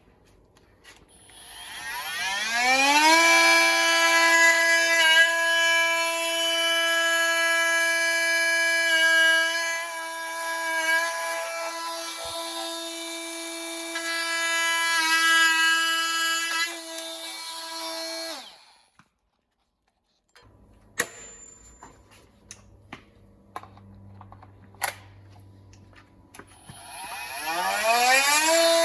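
Bosch GOP 18V-28 cordless brushless oscillating multi-tool. It spins up with a rising whine, runs at a steady high pitch for about fifteen seconds with brief dips in tone and level, then stops. A few faint clicks and knocks follow before it starts up again near the end.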